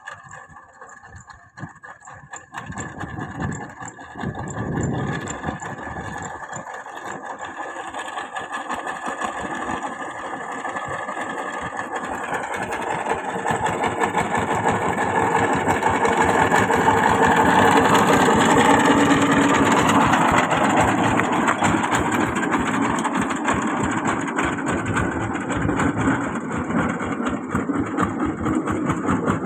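Engine of a grandong, an Indonesian village utility vehicle, which is typically powered by a single-cylinder diesel. It chugs with separate low thumps for the first few seconds, then runs steadily and grows louder until about two-thirds of the way through.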